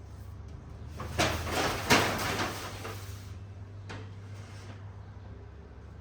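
Household things being handled: two sharp knocks about a second apart, then about a second of clattering and rustling, and a lighter click near the end, over a steady low hum.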